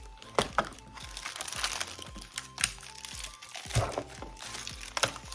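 Plastic toy packaging crinkling as it is handled and opened, with a few sharp crackles, over background music.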